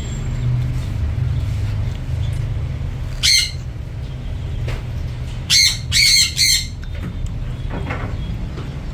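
African lovebirds giving sharp squawks: one a little after three seconds, then a quick cluster of several around five and a half to six and a half seconds. A steady low hum runs underneath.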